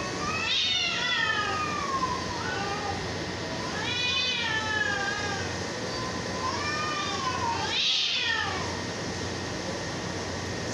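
Two cats in a face-to-face standoff yowling at each other: three long, wavering calls, one after another, each rising and falling in pitch. This drawn-out yowling is the warning call of a territorial cat fight about to break out.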